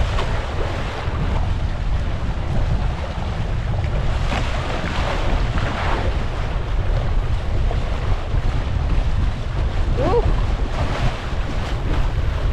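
Wind buffeting the microphone over water splashing and rushing against the hull of a Hobie Tandem Island sailing kayak in choppy waves.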